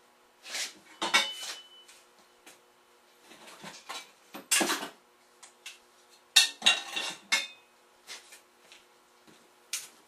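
Loose metal compressor parts clattering and clinking as they are rummaged through and handled. The knocks come irregularly, one with a short metallic ring about a second in, and the loudest clatter comes a little after six seconds.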